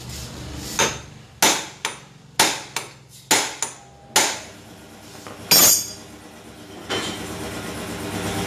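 Sharp hammer blows on metal, about eight strikes over the first five seconds or so, tapping on a socket fitted to a bolt on a Yamaha NVX scooter's engine case. About seven seconds in, an air compressor starts and runs with a steady hum.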